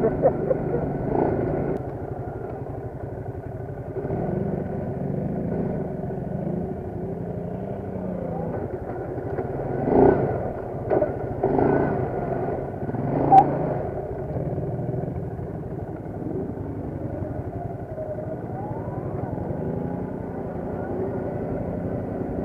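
Quad bike (ATV) engine running steadily while riding a dirt track, heard from on board the machine, with a few louder knocks between about ten and fourteen seconds in.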